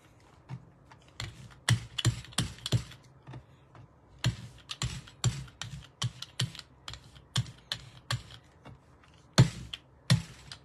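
A brayer and other craft tools being handled and cleaned on a desk: a run of irregular sharp clicks and clacks, two or three a second, a few of them louder.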